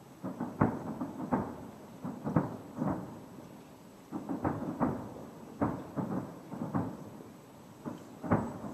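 Distant aerial firework shells bursting: an irregular run of sharp bangs in several clusters, each trailing off in a low rumble.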